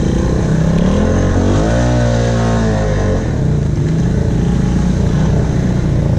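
2016 Honda Rubicon 500 ATV's single-cylinder engine running under way, revving up and back down once about two seconds in.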